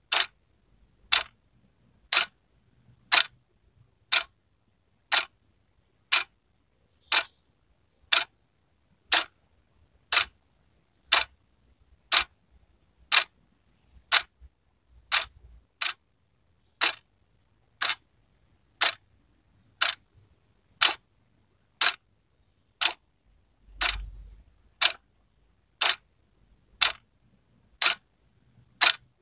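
Wall clock ticking steadily, one sharp tick a second.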